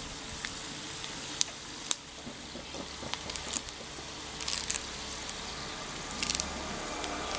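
Black pepper, cumin and chopped ginger sizzling in hot ghee in a small iron kadai, with a steady hiss and scattered pops and crackles: the tempering for ven pongal.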